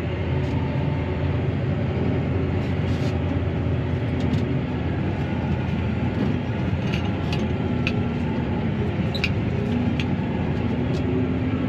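Claas Arion 650 tractor's six-cylinder diesel engine running steadily at working speed, heard from inside the cab, with scattered light clicks and rattles.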